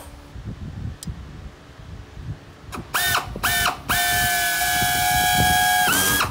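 Pneumatic air drill triggered in two short bursts, then held running for about two seconds. Each burst is a high whine that rises as the motor spins up, over a hiss of exhaust air, as the bit is worked against the aluminium sheet.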